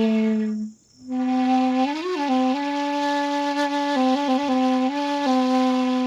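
Background music: a single flute-like wind instrument playing a slow melody of long held notes, with a short break about a second in.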